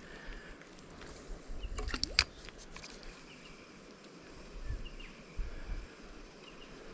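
Outdoor handling noise of low rustles and thumps, with a pair of sharp clicks about two seconds in and faint, scattered bird chirps behind.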